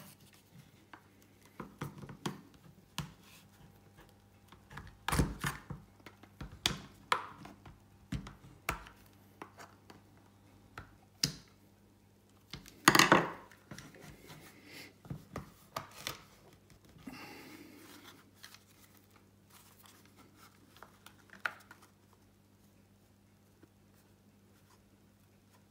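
Plastic housing of a Flexi retractable dog leash being pried apart with a screwdriver: irregular clicks, small snaps and knocks of hard plastic and tool, the loudest cluster of snaps about halfway through.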